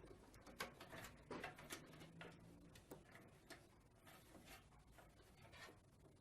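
Faint, irregular clicks and light taps, about a dozen, from computer parts being handled, over near silence.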